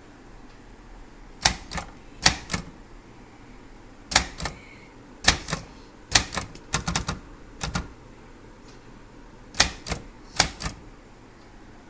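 Brother Deluxe 220 manual portable typewriter being typed on: sharp key strikes in short runs of two to four, with pauses of a second or so between the runs.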